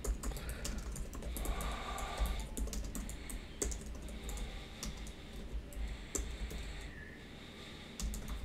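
Computer keyboard keys clicking in quick, irregular runs as a short phrase is typed.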